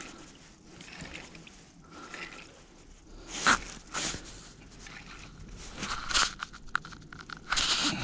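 Crunching and scraping on the ice and rustling of winter clothing as an angler handles a bent spinning rod over an ice hole, with a short run of quick ticks a little after halfway.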